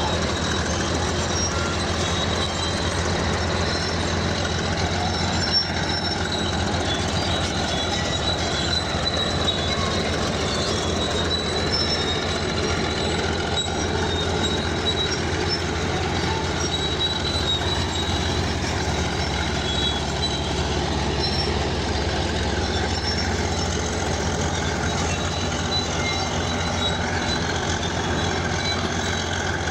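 Crawler bulldozer at work: its diesel engine runs steadily under load while the steel tracks give a wavering high-pitched squeak.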